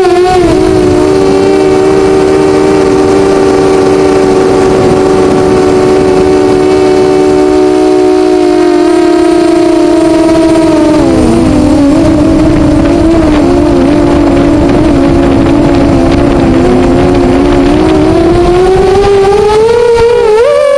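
Eachine 250 FPV racing quadcopter's electric motors and propellers whining in flight: a loud, steady, slightly beating whine that dips briefly about halfway through and climbs in pitch near the end as the throttle changes.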